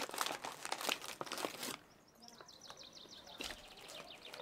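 Plastic snack packet of plantain chips crinkling as it is handled, stopping suddenly a little under halfway through. Faint high chirps follow.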